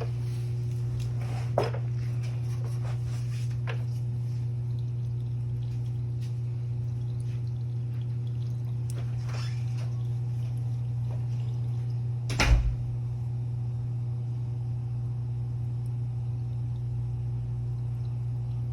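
Small clicks and one louder knock, about twelve and a half seconds in, from the plastic oil filter housing cap and its parts being handled while the old O-ring seals are worked off, over a steady low hum.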